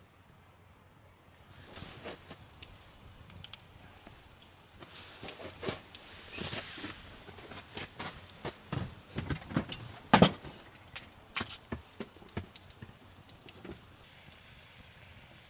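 Food sizzling in a hot pan, starting suddenly about two seconds in, with a hiss and many irregular sharp pops and crackles, one loud pop about ten seconds in, easing off near the end.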